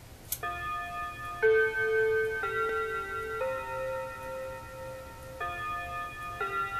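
Seth Thomas pendulum wall clock playing its hour chime: a short click, then a melody of clear ringing notes, one about every second, in a phrase of four with the last held longer, before the next phrase begins.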